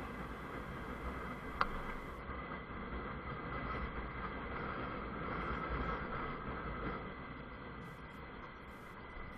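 A Honda CBF 125 motorcycle riding along, its single-cylinder engine running under a steady rush of wind and road noise. There is one sharp click about one and a half seconds in, and the sound eases off over the last couple of seconds.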